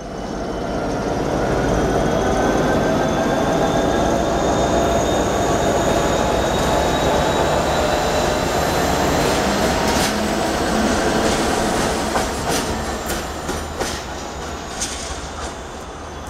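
Irish Rail 201 Class diesel-electric locomotive, its EMD twelve-cylinder two-stroke diesel running under load as it pulls away light engine, with a slowly rising whine. From about ten seconds in, its wheels click over rail joints and points, and the sound grows fainter as it moves off.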